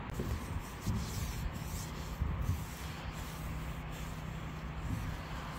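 A rag rubbing and wiping along the boat's rails to take the dust off before painting: an uneven, continuous scrubbing noise.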